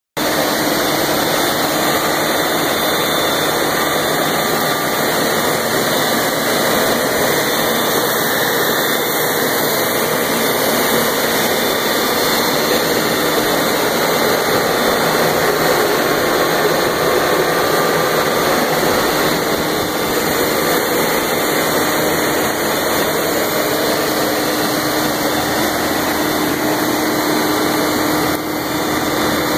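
A 500 hp DC motor running steadily under load test, drawing about 660 amps of armature current: an even, unbroken rushing noise with a faint steady low tone.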